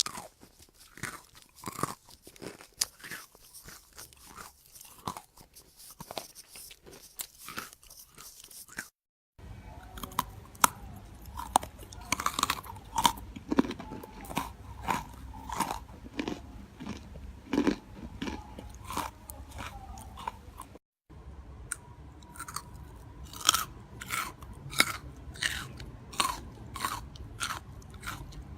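Close-miked chewing of crisp, crunchy food: many sharp crunches and bites in quick succession. It comes as three separate clips, with abrupt cuts about 9 and 21 seconds in.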